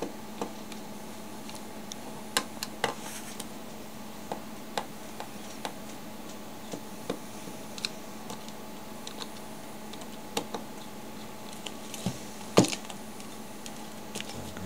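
Small screwdriver turning the screws out of a plastic cordless-phone handset: scattered light clicks and ticks of metal on plastic, with a louder click near the end.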